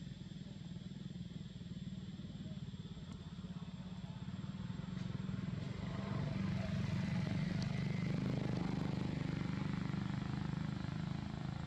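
A motorbike engine running with a steady low, fast-pulsing hum, growing louder about six seconds in.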